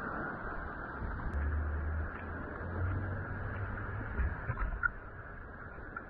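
Seashore ambience: a steady rush of surf and wind, with wind buffeting the microphone in a low rumble for a couple of seconds. A few faint footsteps on rock about two thirds of the way in.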